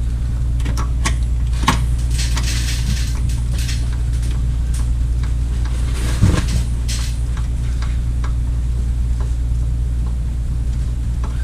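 Scattered metal clicks and knocks of tools and parts being handled during car repair work, with one louder clunk about six seconds in, over a steady low hum.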